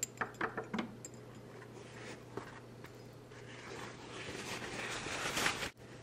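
Handling noise from a fountain pen being lifted out of a glass inkwell after filling: a quick run of small clicks and taps, then a rising rustling hiss that stops suddenly, over a steady low hum.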